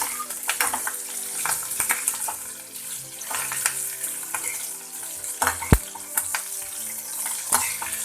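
Large green chillies frying in hot mustard oil with mustard seeds, a steady sizzle with many sharp crackles and pops, and a louder knock about five and a half seconds in.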